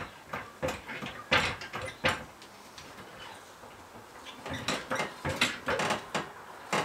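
Car jack being worked to lift a car: a series of short mechanical clicks and clunks with the handle strokes, a few near the start, a lull in the middle, then a quicker run of them near the end.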